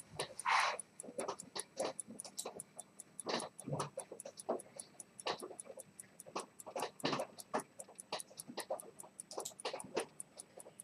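Zenith pocket watch movement ticking fast and evenly, with louder irregular clicks and a brief scrape mixed in.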